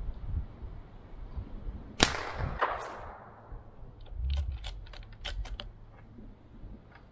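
A single shot from a Bergara B14 bolt-action rifle about two seconds in, its echo fading over about a second. A quick run of sharp metallic clicks follows about two seconds later as the bolt is worked to chamber the next round.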